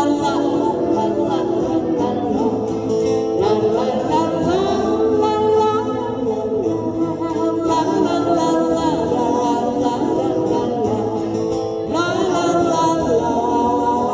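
Men singing a slow old pop song to acoustic guitars, played live through microphones.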